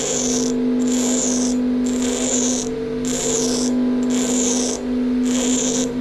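A bench grinder runs with a steady hum while a metal hinge shaft is pressed against the wheel and rotated to grind a point on it. Each contact gives a harsh grinding hiss of about half a second, repeating roughly once a second.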